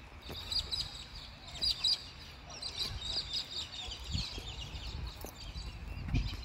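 A flock of birds chirping and calling together in the trees, many short high calls overlapping. Underneath runs a low rumble on the microphone, swelling about four seconds in and again near the end.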